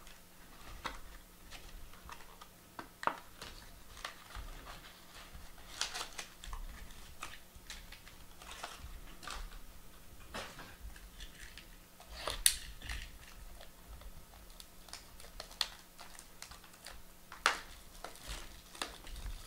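Hands opening trading-card boxes and their packaging, making scattered faint rustles, scrapes and clicks of cardboard and foil wrap. There is a sharper click about twelve seconds in and another near the end.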